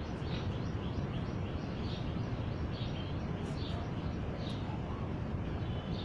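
A small caged parrot chirping in short, repeated calls, about two a second, over a steady low rumble.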